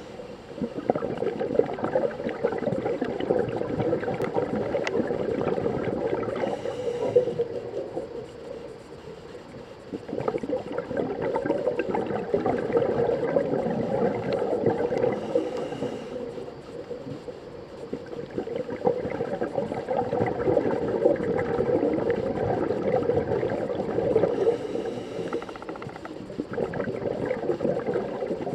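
Scuba regulator breathing heard underwater: a short hiss of inhalation about every nine seconds, each followed by a long stretch of bubbling exhalation.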